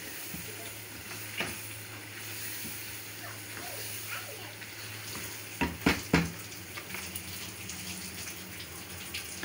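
Chicken pieces sizzling in a pan of oil and juices on a gas stove, a steady hiss with a low hum under it. A few sharp metal knocks come just before the six-second mark.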